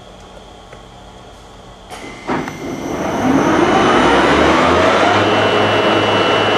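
Union BFT 130/6 horizontal boring mill spindle starting up in second gear: a clunk about two seconds in, then the spindle drive whines up in pitch and settles into a loud steady run at about 500 RPM.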